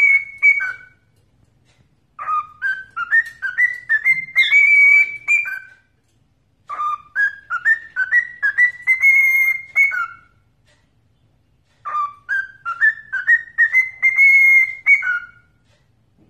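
Cockatiel whistling a learned tune: a phrase of quick, clear notes stepping upward and ending on a lower note, repeated several times with short pauses between.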